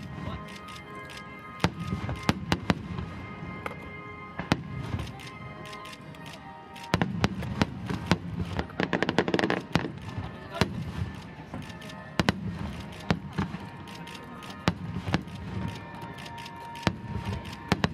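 Large starmine fireworks barrage: a rapid run of sharp bangs from shells bursting over a continuous low rumble and crackle, denser and louder about seven to ten seconds in. Music plays underneath.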